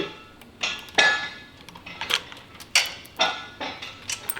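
Metal tools and parts knocking and clinking together: about eight sharp metallic knocks at uneven intervals, each with a brief ring.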